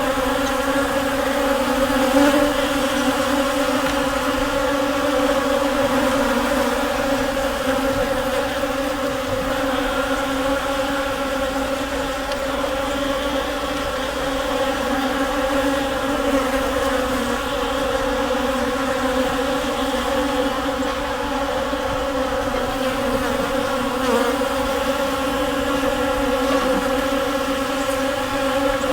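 A swarm of bees buzzing: a dense, steady drone of many wings that holds throughout with only slight swells in loudness.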